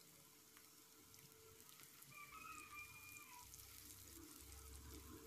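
Very faint sizzling of sliced garlic and shallots frying in a little oil in a wok, barely above near silence.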